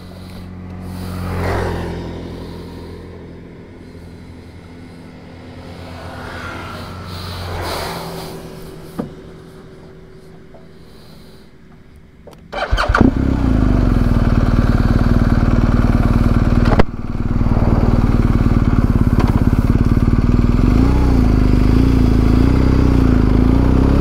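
BMW GS Adventure's boxer-twin engine starting about halfway through, after a quieter stretch, then running loudly and steadily. The motorcycle pulls away, with a brief dip in the sound a few seconds after the start.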